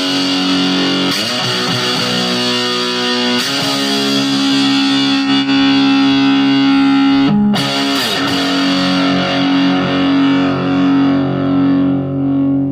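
Electric guitar played through a SubZero SNOWSTORM mini distortion pedal with its distortion turned all the way up and its mode switch on normal. Sustained distorted chords ring out, changing to a new chord a few times.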